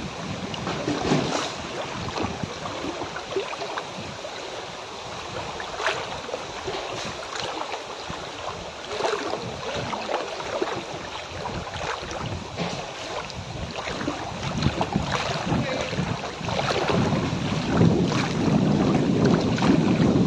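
Muddy floodwater sloshing and splashing irregularly around someone moving through it, growing louder near the end.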